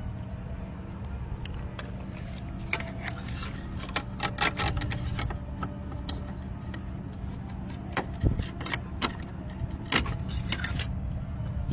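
Dodge Ram pickup's engine idling steadily while a locksmith's lockout tools click and tap against the locked door in a string of short, sharp metallic clicks.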